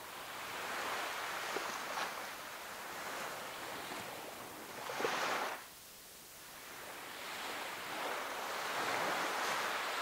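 Small waves washing onto a sandy beach in slow swells of noise. One surge about five seconds in is the loudest and cuts off abruptly, and another builds toward the end.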